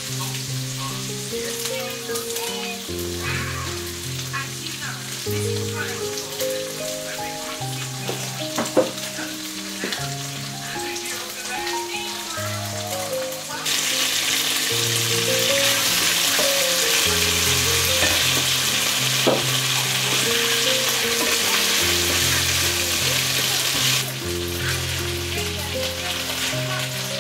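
Food frying in a pan, sizzling throughout and much louder from about halfway in until it cuts off shortly before the end, over soft background music with slow held notes. A few small clicks of utensils come in the first half.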